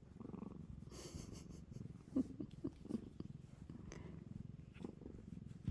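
A domestic cat purring steadily and close up, with a few faint clicks and rustles.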